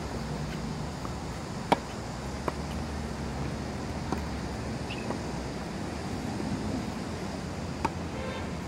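Tennis ball struck back and forth during a baseline rally: sharp pops of racket hits and ball bounces a second or two apart, the loudest about two seconds in and another strong one near the end. Under them runs a steady low rumble of wind and outdoor background noise.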